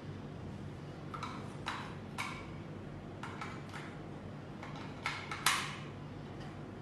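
Batteries being fitted into a handheld plastic wireless remote controller: a scattering of light plastic clicks and taps, the sharpest about five and a half seconds in.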